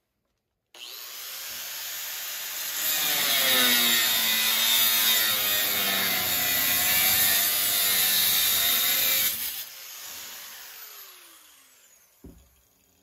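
Electric power tool cutting a faceplate. The motor starts abruptly about a second in and cuts at full load for about six seconds. It is then switched off and winds down with a falling whine.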